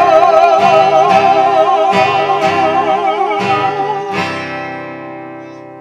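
The last sung note of a worship song, held with vibrato, over an acoustic guitar strummed about twice a second. A little after four seconds the guitar gives a final strum, and the chord rings out and fades.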